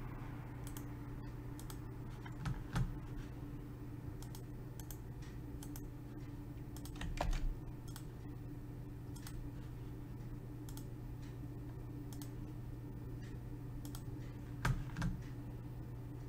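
Scattered clicks of computer keyboard keys and a mouse, a few at a time with pauses between, over a steady low hum; a few louder clicks stand out about 3, 7 and 15 seconds in.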